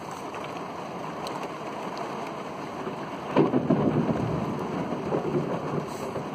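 Steady rain, then a little over three seconds in a sudden loud thunderclap from a close lightning strike, rumbling on for the next few seconds.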